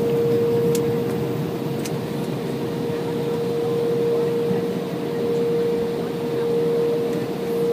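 Steady cabin noise of an Embraer E175 regional jet taxiing, heard from a window seat over the wing: an even rumble from the engines at taxi power, with a constant mid-pitched hum running through it.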